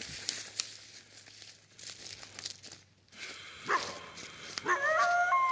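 Footsteps crunching through dry grass and leaves, then a coyote gives a short yelp and, near the end, a held, wavering howl.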